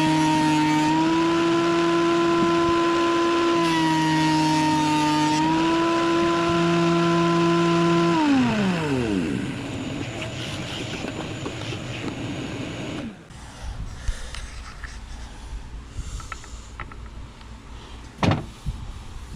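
Bauer 15-amp thickness planer running with a loud, high motor whine that sags slightly in pitch twice as boards go through. About eight seconds in it is switched off and winds down in falling pitch. Quieter rustling and small clicks follow, with a single sharp knock near the end.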